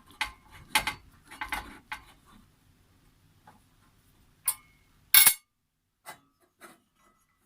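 Metal clinks and knocks as a detachable handle is taken off one frying pan and handled against the pans: a run of light clicks, then two louder ringing clinks about halfway through, then a few faint ticks.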